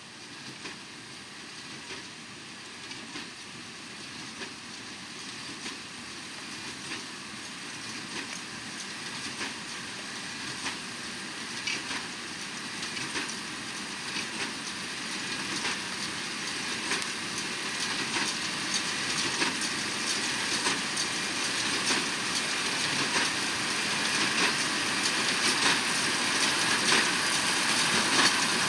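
Fendt 724 Vario tractor and Massey Ferguson 2170 large square baler working through straw, drawing steadily closer and louder. A continuous machine drone is overlaid by repeated short clacks from the baler's mechanism.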